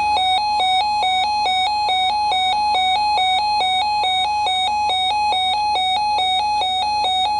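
A weather alert radio's alarm sounding: a loud electronic tone flipping rapidly between two close pitches, about three or four times a second. It signals that the radio has been activated by a NOAA Weather Radio warning.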